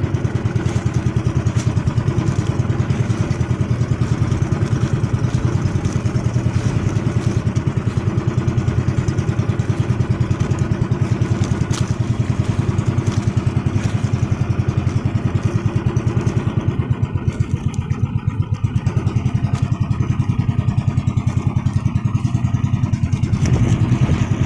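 Engine of a motorized outrigger boat (bangka) running steadily under way, a fast, even pulsing heard from on board.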